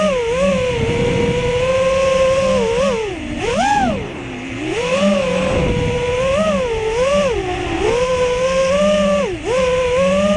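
Brushless motors and propellers of an FPV quadcopter (BR2205 2300KV motors) whining in flight. The pitch keeps rising and falling with the throttle, with a sharp climb then a drop about four seconds in and another brief drop near the end. Wind noise rumbles underneath.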